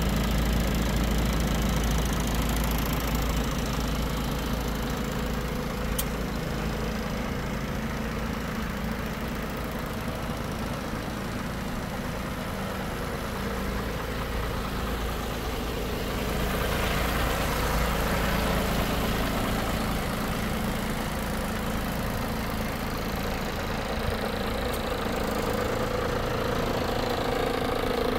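Volvo FE 250.18 truck's six-cylinder diesel engine idling steadily.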